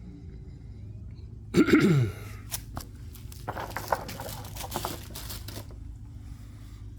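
A short cough-like vocal sound with a falling pitch, then a few seconds of scattered clicks and rustling as parts are handled, over a steady low hum.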